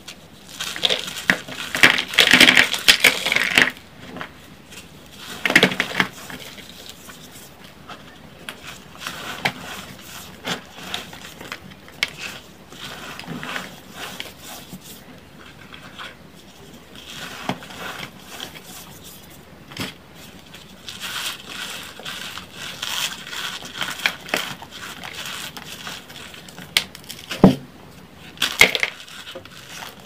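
Reformed gym chalk blocks crushed and crumbled in bare hands: dense crunching and crackling of the chalk breaking into powder. It is loudest for the first four seconds, then goes on as quieter crumbling, with a couple of sharp cracks near the end.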